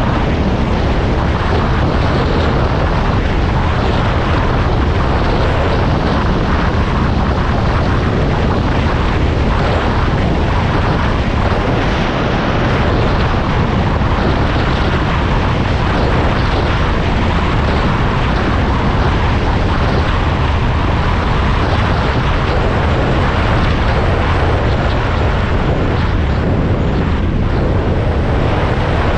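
An engine running steadily and loudly without a break, with a dense rushing noise over its low hum.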